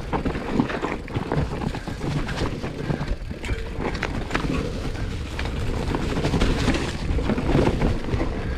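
Commencal Meta HT hardtail mountain bike descending a rocky trail: tyres rumbling over dirt and stones, with a constant clatter of small knocks and rattles from the bike, and wind on the microphone.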